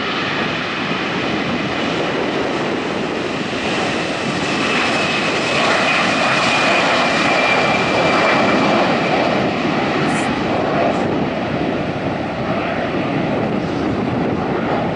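Airbus A340-300's four CFM56 turbofans at takeoff power, a steady jet roar with a thin whine. It swells to its loudest about halfway through, then eases slightly as the airliner departs.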